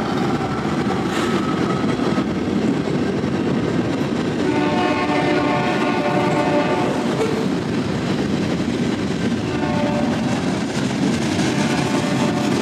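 Union Pacific freight train passing at close range, its wheels and cars rumbling steadily on the rails. The diesel locomotive's air horn sounds a chord fading away at the start, again about four seconds in for a couple of seconds, and once more briefly near the end.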